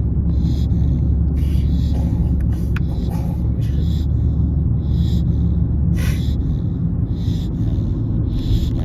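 Six-month-old Corgi puppy snoring in its sleep: short hissing snorts recurring every half second to a second, over a steady low rumble.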